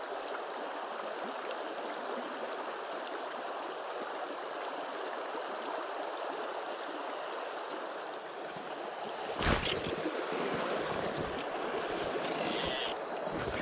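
River water flowing steadily, with a single knock about nine and a half seconds in and a short high hiss near the end.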